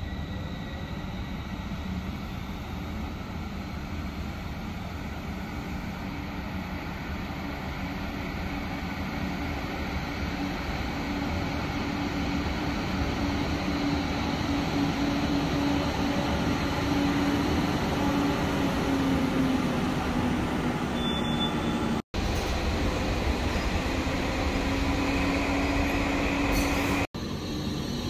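Electric trams running into an underground station: wheel rumble and a low motor whine that grow steadily louder as a tram approaches and pulls in, echoing off the station walls. The sound cuts out sharply twice near the end.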